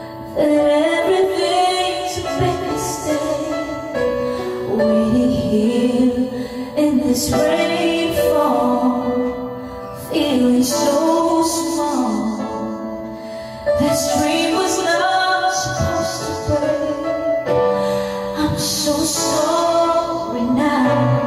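A woman singing a ballad into a karaoke microphone over a backing track, in phrases of held notes a few seconds long.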